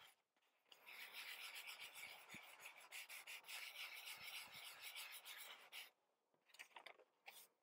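Sandpaper scrubbed quickly back and forth over a glossy magazine page, scuffing the printed black background away to a textured, distressed surface. The quiet scratchy strokes stop about six seconds in, followed by a few short scrapes.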